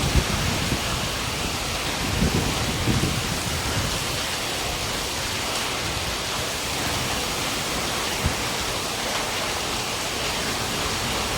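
Steady heavy rain falling, an even hiss, with a few low thumps near the start and again about two to three seconds in.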